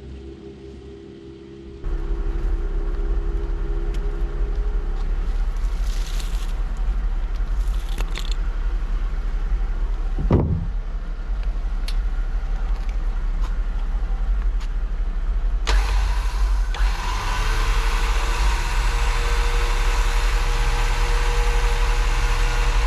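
A motor vehicle running with a heavy low rumble. It gets much louder about two seconds in and again around sixteen seconds, with a brief falling whoosh near the middle.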